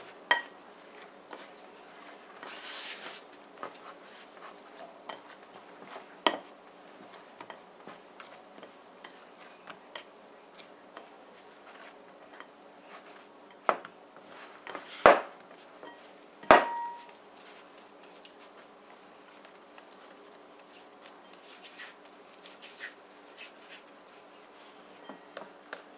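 Hands kneading flour dough in a ceramic bowl: soft rubbing with scattered knocks and clinks of the bowl. The two loudest come about halfway through, the second with a brief ring.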